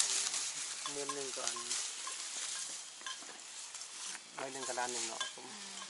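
Brief snatches of people's voices over a steady high hiss with faint scattered clicks.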